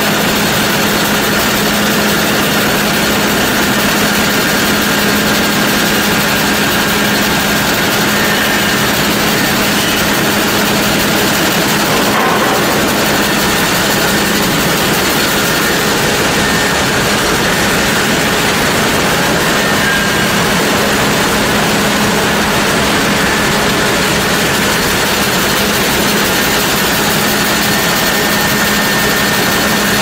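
Sawmill machinery running steadily: a loud, even mechanical din with a constant low hum.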